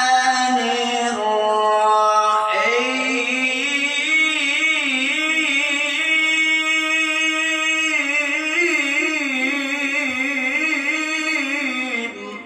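A man reciting the Quran in the melodic qari style, drawing out one long melismatic phrase with a wavering vibrato. About two seconds in his voice climbs to a higher pitch and holds it for nearly ten seconds before stopping near the end.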